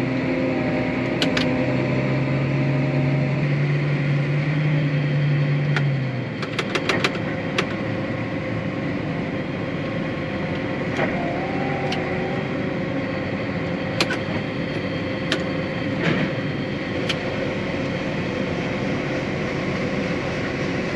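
Combine harvester running with a steady machine drone. About six seconds in, its low steady tones drop away, leaving a steady rumble with scattered clicks and ticks.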